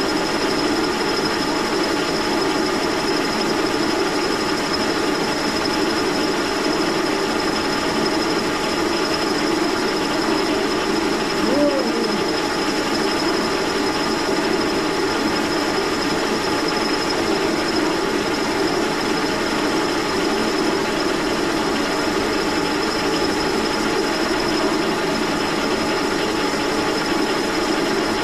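Brown & Sharpe No. 2 horizontal milling machine running under power, its Criterion boring head turning a carbide boring bar through the hub of a hard cast-iron crank lever: a steady machine drone with a thin high whine over it.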